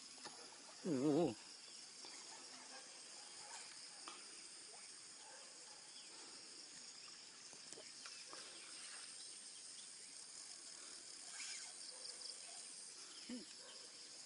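Insects chirring in a steady high-pitched drone. About a second in, a brief wavering voice cuts in, the loudest sound, and a faint one follows near the end.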